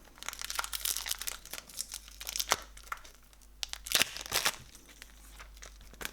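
Crinkling and tearing of a trading-card pack's wrapper as it is handled and opened, a run of dry crackles with sharper snaps about two and a half and four seconds in.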